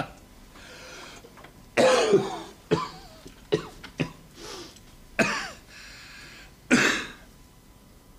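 A man coughing harshly in a fit of about six coughs, the loudest about two seconds in and near the end, from choking on joint smoke he has just drawn in.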